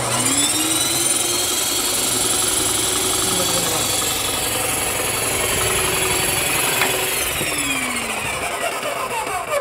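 Electric airless paint sprayer's motor and pump switched on in prime for a test run: the whine rises as it spins up, runs steadily while it draws paint and sends it back through the return hose into the bucket, then falls in pitch from about seven seconds in as it slows.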